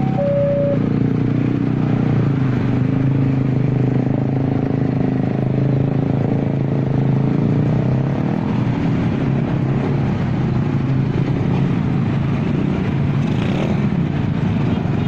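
Diesel freight train: the tail of a two-tone locomotive horn blast cuts off about half a second in, followed by a steady low engine drone and the rumble of the passing train.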